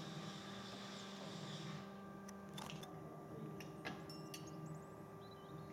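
Faint outdoor background: a steady hiss that cuts off about two seconds in, then a few faint clicks and short high chirps over a low hum.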